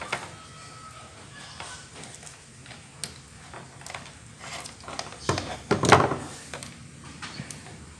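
Crimping tool and RJ45 connector being handled on a UTP network cable: scattered light clicks and knocks, with a louder clatter about five to six seconds in.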